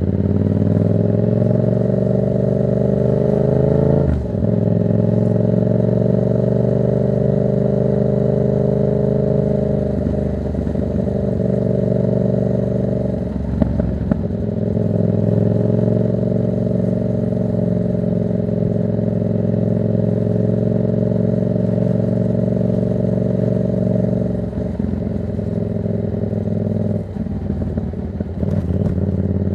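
Yamaha MT-07's parallel-twin engine running through a Black Widow exhaust with no dB killer, riding under load. The pitch rises over the first few seconds, then dips briefly at gear changes about four seconds in and again about thirteen seconds in. It holds steady before the revs drop near the end.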